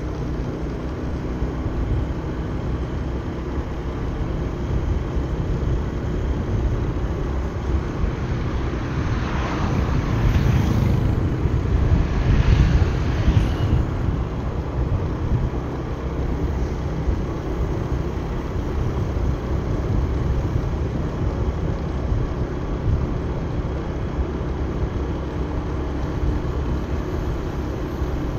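Motorbike riding along a mountain road: steady low engine and road rumble mixed with wind on the microphone, with a louder swell about ten to fourteen seconds in.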